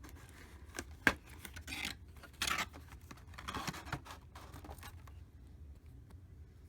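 Plastic figure packaging being handled: scratchy rustling and sharp clicks, with louder scraping bursts about two and a half and three and a half seconds in, dying down after about five seconds.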